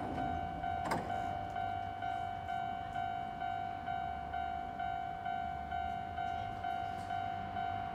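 An electronic signal tone beeps steadily at about one and a half beeps a second while an electric train stands at the platform with its doors open, over the train's low steady hum. A single sharp click comes about a second in.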